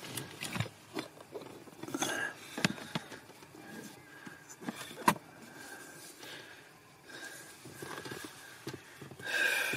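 Light handling noises in the car's footwell: scattered soft knocks, clicks and rustles as parts and tools are moved on the carpeted floor, with one sharp click about five seconds in.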